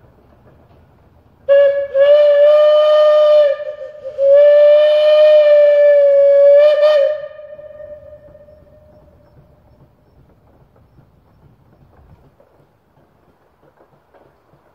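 Steam whistle of a Sawyer-Massey traction engine blowing two long blasts at a steady pitch, each about two seconds long, the second ending in a short extra toot and then dying away over a couple of seconds.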